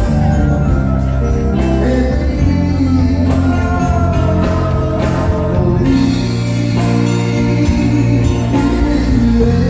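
Live band playing in a tent, heard from the audience: electric guitars and drums with a singing voice, loud and continuous.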